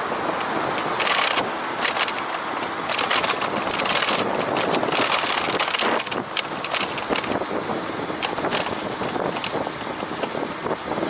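Bicycle riding noise: wind rushing over the microphone and tyres rolling on the path, with frequent short clicks and rattles and a thin steady high tone underneath.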